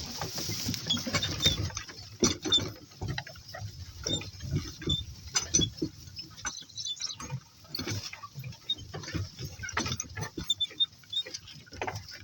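Irregular rustling and crunching in grass from people and donkeys walking through it, with no steady rhythm.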